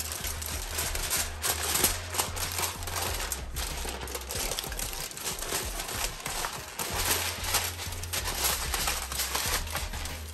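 Heavy-duty aluminum foil crinkling and crackling continuously as hands press and crumple it into a baking dish and around its rim.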